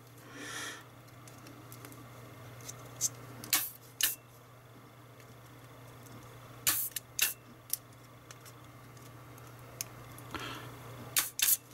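Electric vacuum desoldering gun working on a circuit board: sharp clicks in pairs, three times, as its electromagnet-driven suction plunger fires, over a steady low hum.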